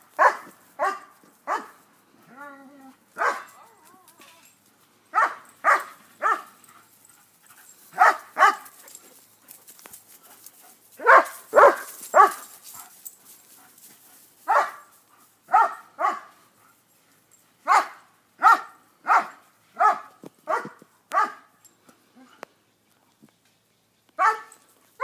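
German shepherd barking during play, more than twenty short, sharp barks in runs of two to four, with a pause of about two seconds near the end.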